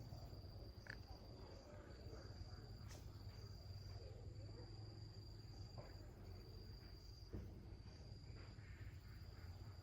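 Faint, steady high-pitched insect trilling, broken by short gaps, over a low background rumble.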